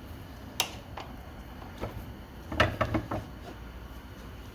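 Sharp metal clinks and knocks as the rear axle of a 1988 Honda Gold Wing is worked out of the swingarm and wheel: a single click about half a second in, then a quick cluster of clanks, the loudest with a dull thump, a little after two and a half seconds.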